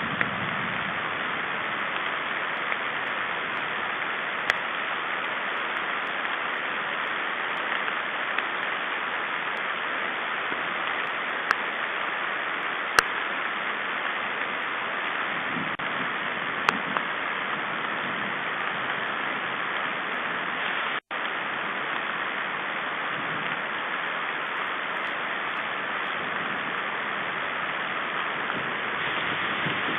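Steady rain hissing through the webcam's microphone, with a few scattered sharp ticks of single drops.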